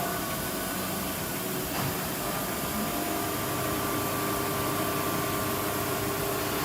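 Deckel Maho DMU 80T 5-axis machining centre running: a steady hum with a few held tones over an even hiss, with a faint tick about two seconds in.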